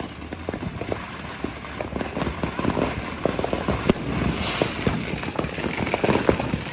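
Fireworks and firecrackers going off: an irregular string of sharp pops and cracks, with a rushing hiss for about a second around the middle.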